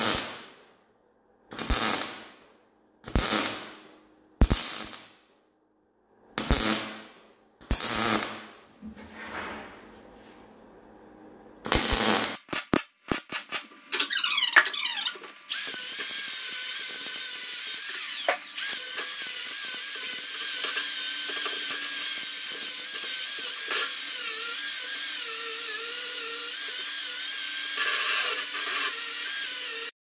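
MIG welder laying a quick series of short tack welds, about seven brief crackling bursts spaced a second or two apart. After a few more short bursts, an angle grinder with a flap disc starts about halfway through and runs steadily, grinding the welds smooth on the steel.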